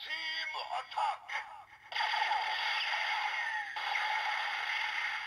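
Bandai DX Transteam Gun toy playing through its small built-in speaker: a short recorded electronic voice callout, then about two seconds in a long, loud, hissing blast sound effect. The effect breaks briefly partway through, then resumes.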